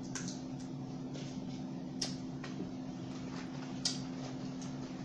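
Close-up mukbang eating sounds: scattered wet smacks and sharp clicks from chewing and handling seafood boil, the sharpest about two seconds in and near four seconds in, over a steady low hum.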